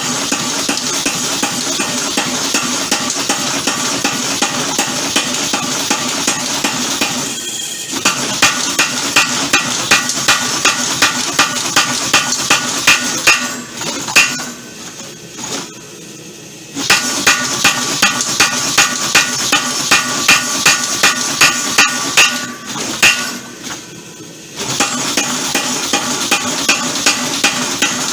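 Homemade mechanical power hammer striking hot steel, sharp ringing blows at about two a second in runs, with short pauses between them. For the first several seconds there is only a steady mechanical noise.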